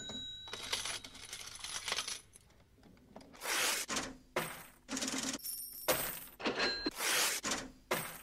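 Coins jingling and clinking in a run of short bursts, with thin metallic ringing. There is a brief lull about two and a half seconds in.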